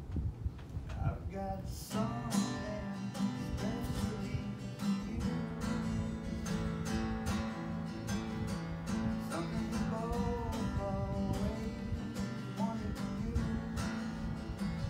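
Acoustic guitar played live, strummed in a steady rhythm; after a few quiet notes the strumming comes in fully about two seconds in.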